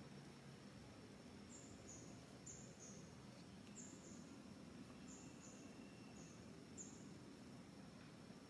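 Near silence with faint outdoor ambience: short high chirps, mostly in pairs, every second or so, over a steady thin high whine and a low background hum.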